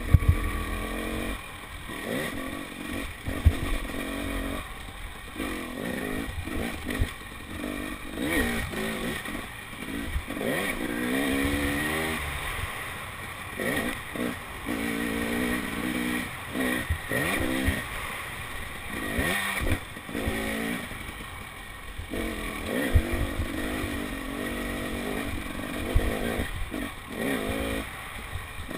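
KTM 300 XC-W two-stroke dirt bike engine revving up and down again and again as the bike is ridden over a rough dirt trail. Short knocks and clatter come from the bike over bumps.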